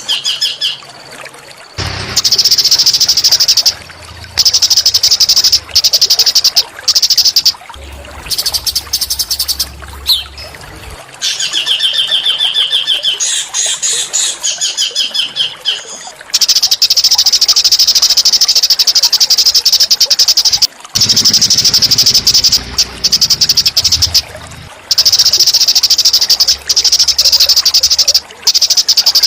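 A small songbird's rough, rapid buzzing trills, high-pitched, sung in long bursts of a few seconds with short gaps between, with a stretch of quicker chattering notes in the middle.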